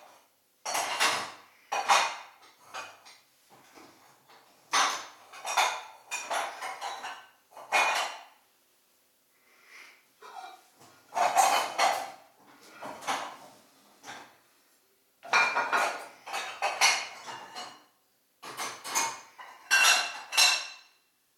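Small birds landing and pecking at a tube seed feeder, in repeated bursts of clattering, clinking taps separated by short pauses.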